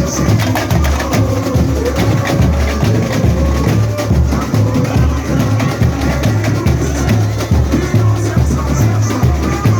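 Samba school bateria playing a samba beat: surdo bass drums pound a steady pulse that alternates between a lower and a higher drum, under a dense clatter of snare drums and other hand percussion.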